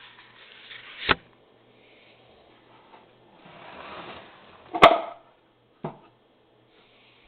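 Vintage Smith Corona manual typewriter being handled: three sharp mechanical clacks, about a second in, near five seconds (the loudest) and once more a second later, with rustling, sliding noise before the first two.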